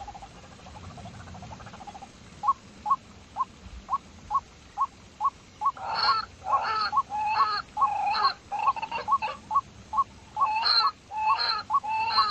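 Animal calls: a run of short, clear, evenly spaced notes about two a second, then from about halfway louder, harsher calls joining in and repeating in quick succession.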